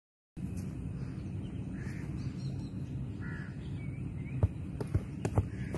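Outdoor background noise with a bird calling a few short times, and a quick run of sharp thuds from a handball in play about four to five and a half seconds in.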